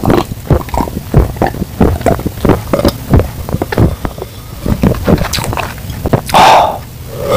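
A person gulping down a glass of sparkling soda in quick, repeated swallows, then a loud burp near the end.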